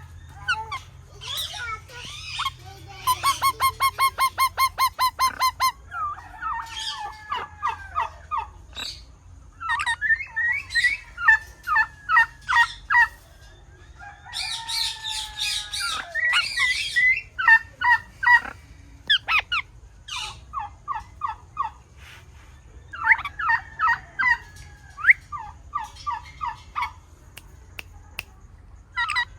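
A parrot calling in runs of sharp repeated squawks, about five a second, each run lasting a few seconds, with a harsher screech about halfway through.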